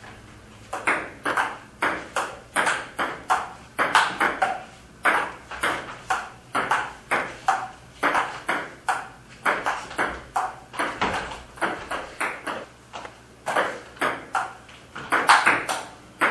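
Table tennis rally: a ping-pong ball clicking off the paddles and the table in a quick, steady run of sharp ticks.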